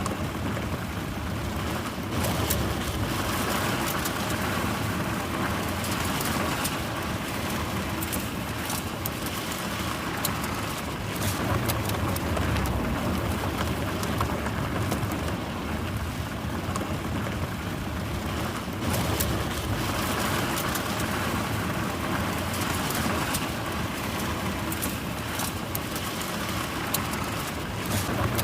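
Car driving at normal speed on a gravel road: tyres crunching and crackling over loose stones with a low rumble of the car beneath, steady throughout.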